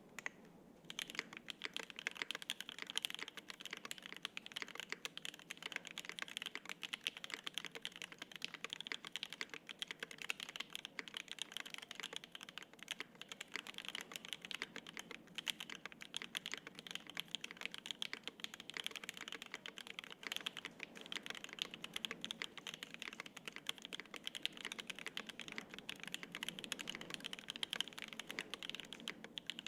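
Fast, continuous typing on a custom mechanical keyboard: an Exclusive E7-V2 gasket-mount 75% prototype with lubed and filmed Alpaca V2 linear switches, an FR-4 plate and GMK double-shot ABS keycaps. A dense stream of keystroke clacks starts about a second in.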